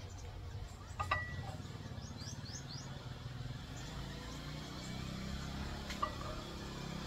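Quiet mealtime sounds: a light clink with a brief ring about a second in and another near the end, and a few quick rising bird chirps about two seconds in, over a low steady hum.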